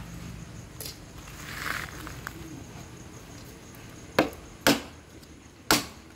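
Bamboo being chopped with a dao (machete): three sharp strikes in the second half, the first two about half a second apart and the third about a second later, after a few fainter knocks and a brief rustle.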